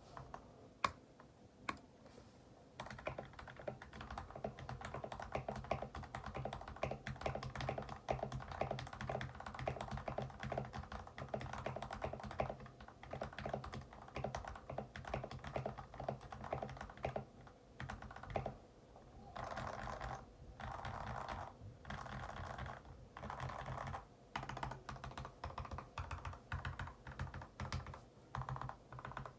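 Typing sound test on an LTC Nimbleback NB681 65% mechanical keyboard with lubed Gateron Yellow linear switches, a tape-modded PCB and stock double-shot ABS keycaps, a creamy, poppy sound. A few single keystrokes come first, then steady fast typing, with several dense runs of keystrokes about two-thirds of the way through.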